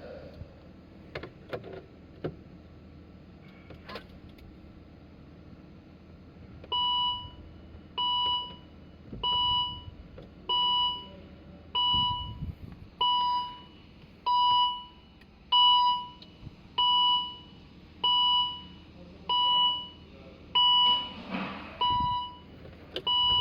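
A few light clicks, then from about seven seconds in a warning chime beeping steadily about once every 1.25 seconds. This is the 2012 Volvo XC60's dashboard alert that goes with its fault messages, such as brake failure and stop safely, on a car that will not crank or start.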